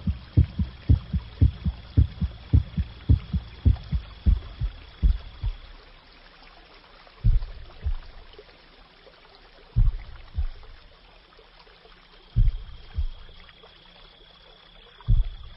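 Heartbeat: low double thumps, lub-dub, coming quickly at first and slowing within about five seconds to one beat every two and a half seconds or so, a heart slowing down.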